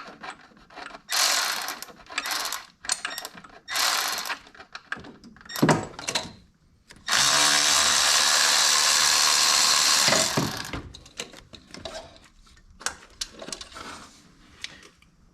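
Power tool backing out an alternator mounting bolt: a few short bursts, then one steady run of about three and a half seconds that tails off near the end.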